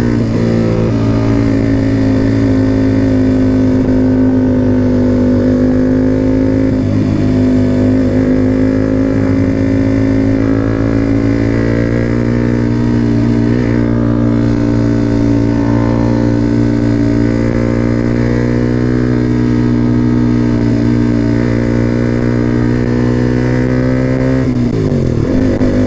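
Motorcycle engine running steadily at cruising speed, holding a nearly constant pitch, with a brief dip and rise in revs near the end.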